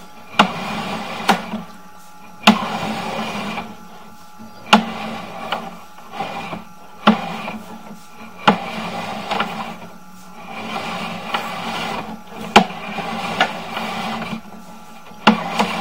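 Sewer inspection camera's push-rod cable being pulled back out of the line and fed onto its reel: a rasping, rubbing scrape with a sharp knock every second or two, over a steady low hum.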